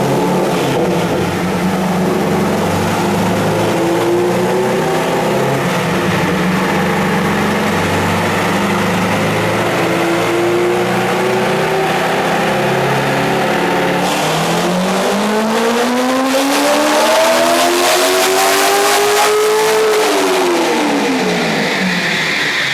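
Supercharged Corvette V8 on a chassis dyno. It runs steadily at low revs, then revs up in one long climbing pull of about six seconds. Near the end the throttle closes and the revs drop away quickly.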